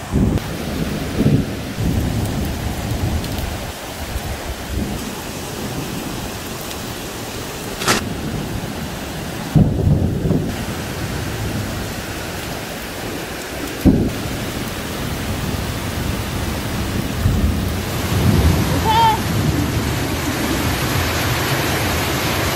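Heavy downpour of rain hissing steadily, broken by thunder. Several rumbles and sharp claps come through it, the loudest around ten seconds in and again near fourteen seconds.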